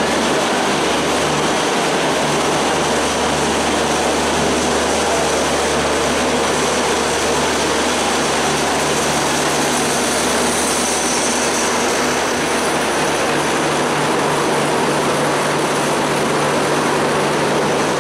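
Bangladesh Railway broad-gauge intercity passenger coaches rolling past a station platform: a loud, steady rumble of wheels on rail with a low, even hum underneath.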